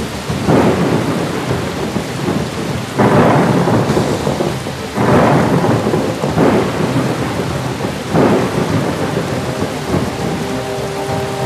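Heavy rain pouring steadily, with about five claps of thunder, the loudest about three and five seconds in.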